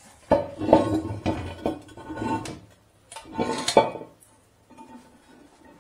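Metallic clattering and knocking of a flexible drain-cleaning shaft worked in a wash basin's drain pipe, in two bursts, the second ending about four seconds in.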